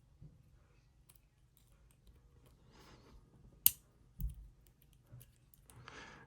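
Metal lock picks working inside a lock, most likely a pair of handcuffs, with faint small clicks throughout. One sharp click about three and a half seconds in is followed by a dull knock.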